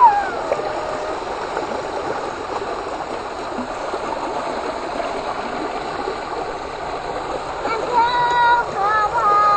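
A steady rushing noise throughout, with a voice calling out briefly at the start and a few short, high calls near the end.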